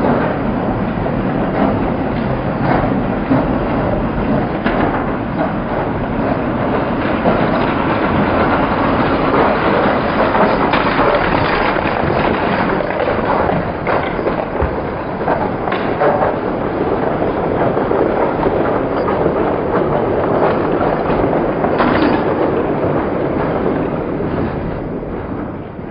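Train running along rails: a steady, loud clatter with scattered clicks, fading out at the end.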